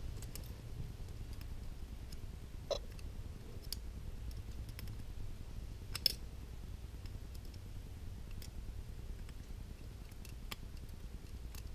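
Scattered small metallic clicks of a screwdriver working screws out of a Ruger Vaquero revolver's frame, with two sharper clicks about a quarter and halfway through, over a low steady background hum.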